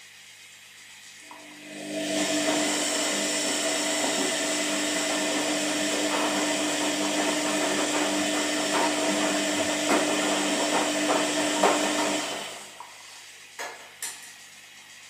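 Washing machine motor running for about ten seconds with a steady whine over a rattling whir, starting about two seconds in and winding down near the end, followed by two sharp clicks.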